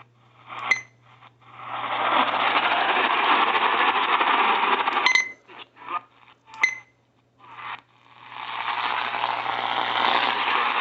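Radio receiver static: a steady hiss that cuts in, drops out to near silence and comes back, with three short sharp clicks in between and a faint low hum underneath.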